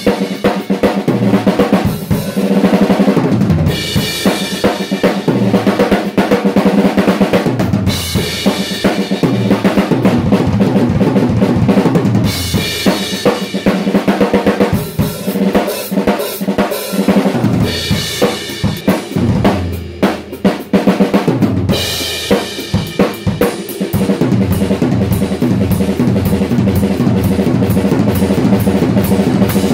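Acrylic-shell drum kit played in a steady groove of bass drum, snare and toms, with several cymbal crashes. The drums are fitted with the same heads the drummer uses on his other kits.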